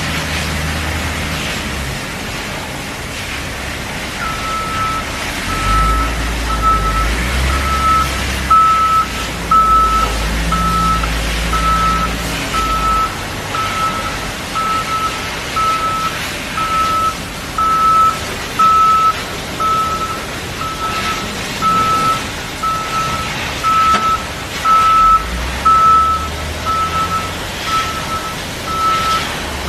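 Reversing alarm of a heavy construction vehicle, a single steady tone beeping about once a second, starting a few seconds in, over the low rumble of its diesel engine.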